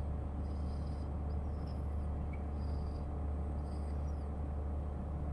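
Steady low background hum with a few faint, short, high-pitched chirps over it.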